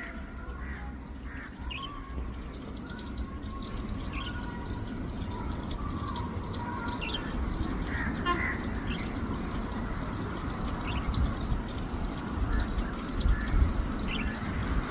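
Short bird calls, scattered through, over a steady low rumble.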